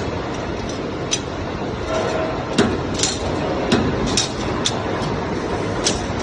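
CNC flat bar punching, cutting and bending machine running automatically: a steady mechanical noise with about ten sharp metallic clanks at uneven intervals as it works the steel bar into pipe clamps.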